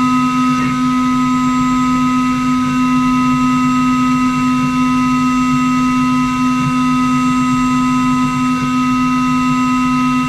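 CNC router running steadily, with an even whine made of several steady tones over a machining rumble.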